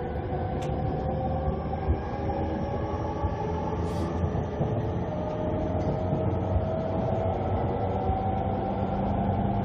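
Running sound of a JR East E231-500 series electric train with a Mitsubishi IGBT-VVVF inverter: a steady rumble of wheels and motors, with the inverter's thin whining tones gliding slowly in pitch.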